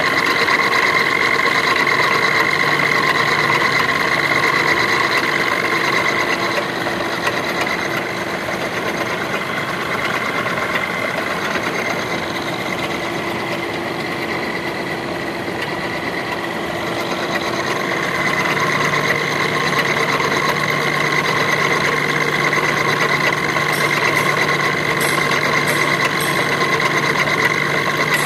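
Gear-cutting machine tool running steadily, a hum with a high steady whine. It goes somewhat quieter for about ten seconds in the middle, then comes back up.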